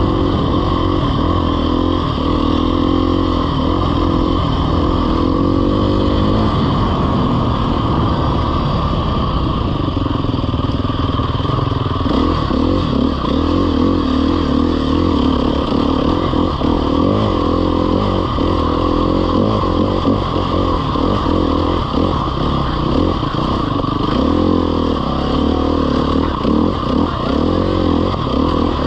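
Dirt bike engine running hard, its revs rising and falling again and again as the rider works the throttle.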